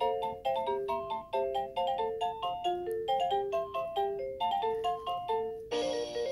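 Musical nightlight toy playing a simple electronic tune of clear single notes. Near the end it switches to a different, faster pattern of quick repeated notes.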